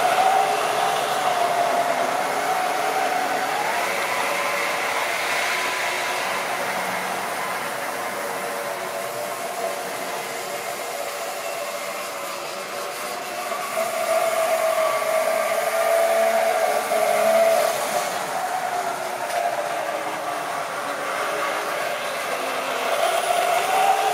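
Model railway train running round the layout: a steady whine from the locomotive's motor over the rumble of wheels on the track. It grows louder each time the train passes close by, at the start, again past the middle, and near the end.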